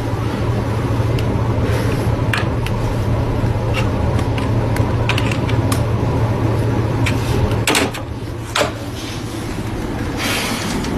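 Chess pieces being set down on a folding chess board, a handful of sharp taps spread through the seconds. Under them runs a steady low hum that drops away about eight seconds in. A short rustling rush comes near the end.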